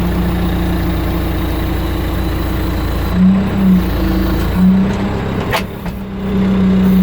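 Backhoe engine running steadily at raised throttle, with its note wavering a few times midway. About five and a half seconds in there is a sharp knock, and the engine dips briefly before settling again.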